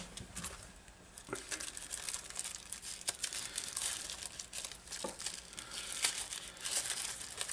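Small plastic bag being crinkled and pulled open by hand. Irregular crackling starts about a second in, with a few sharper clicks.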